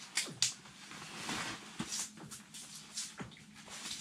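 A fish flopping on the bare ice, giving several short sharp slaps a second or so apart, mixed with rustling as it is grabbed.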